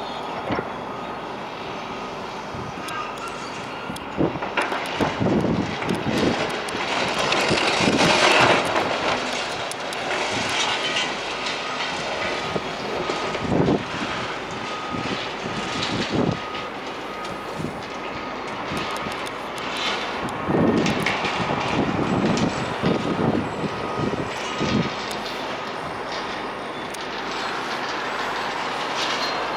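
Heavy demolition machinery working on a building, with steady machine noise and several loud crashes of breaking masonry and falling rubble.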